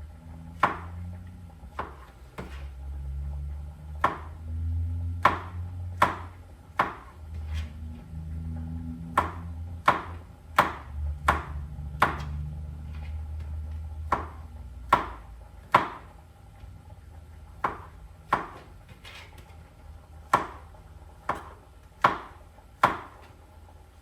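A kitchen knife chopping vegetables on a cutting board: sharp single knocks of the blade striking the board at an uneven pace, roughly one a second. A low rumble runs underneath through the first half or so.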